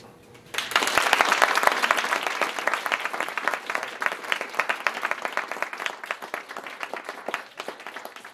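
Audience applauding. The clapping breaks out suddenly about half a second in, is loudest in the first two seconds, and gradually thins out toward the end.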